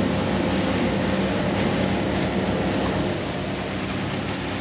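Motorboat underway: the engine's steady drone under the rush of water along the hull and wind.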